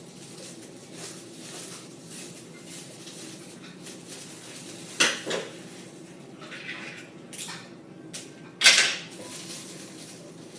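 Scissors cutting a mylar emergency blanket, the foil sheet rustling and crinkling between cuts, with two loud sharp snips about five seconds in and near the end.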